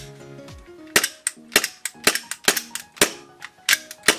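Kublai P3 gel-ball gas blowback pistol, a Glock 19 Gen5 copy, firing a string of sharp shots, several a second, each with the clack of its slide cycling, over background music. This is a test-fire with the pistol's original part, which the shooter judges not very good.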